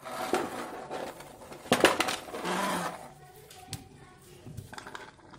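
Plastic toy vehicles knocking and clattering on a concrete floor as they are handled, with a cluster of sharp knocks about two seconds in, then lighter taps.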